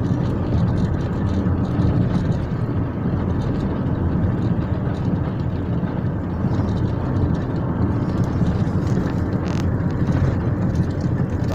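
Car heard from inside the cabin while driving at low speed: a steady rumble of engine and tyres on the road.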